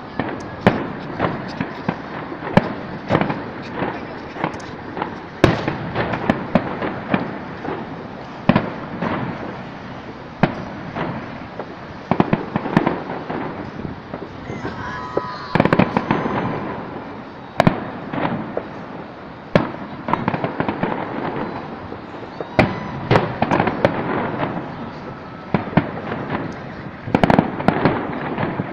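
Aerial fireworks bursting: an unbroken run of sharp bangs and crackles at irregular intervals, several close together at times, over a steady background rumble.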